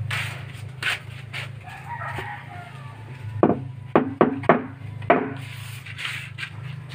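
Five wooden knocks in quick succession near the middle as the patched plywood amp rack is handled, each with a short hollow ring, over a steady low hum. A rooster crows faintly about two seconds in.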